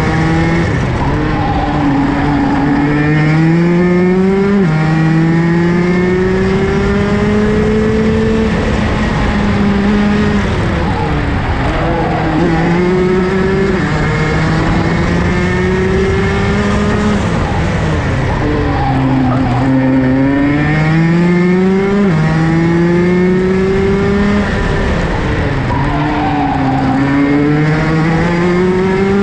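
Rotax DD2 race kart's 125 cc single-cylinder two-stroke engine at racing speed, heard onboard, its pitch climbing steadily on the straights and falling into the corners. The pitch drops suddenly twice, about five seconds in and again a little past twenty seconds.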